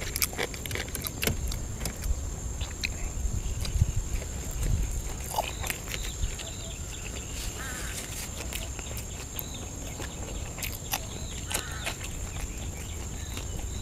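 Close-up chewing and wet mouth clicks from someone eating grilled sausages, over a steady high whine and a few bird chirps.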